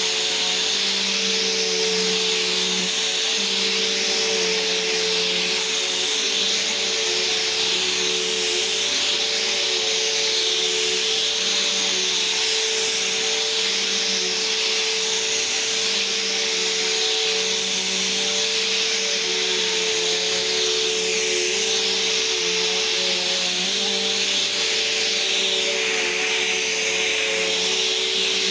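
Vacuum cleaner running steadily: a constant motor hum with a strong steady tone and a broad rush of air.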